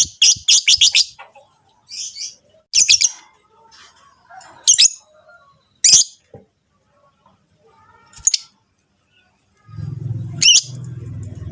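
Lovebirds chirping: a fast run of sharp, high chirps in the first second, then single shrill chirps every second or two. Near the end a steady low hum starts up beneath them.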